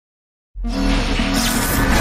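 Intro music with held low notes and a deep bass, cutting in suddenly about half a second in after silence.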